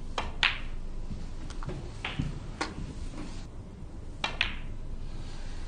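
Snooker balls clicking: the cue tip striking the cue ball and balls knocking together, a handful of sharp clicks, the loudest just under half a second in and a close pair near the end.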